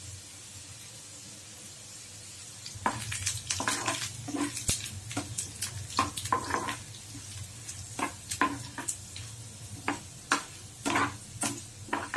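Cashews, onion and chillies sizzling steadily as they fry in ghee in a pan. From about three seconds in, a spoon stirs them, with irregular scrapes and clicks against the pan.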